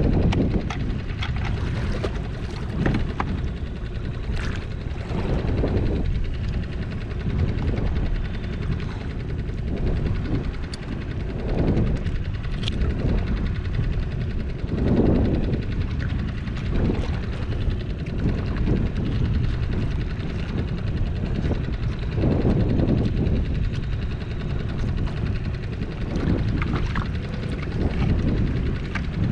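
Wind buffeting the microphone on an open skiff at sea, a steady low rumble, with water sloshing against the hull in swells every few seconds.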